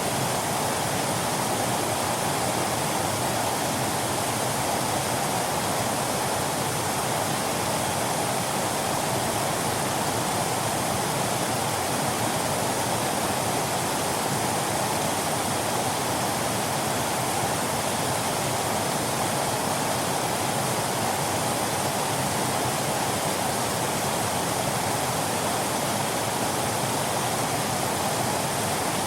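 Waterfall: water falling and splashing in a steady, unbroken rush, fullest in the middle range.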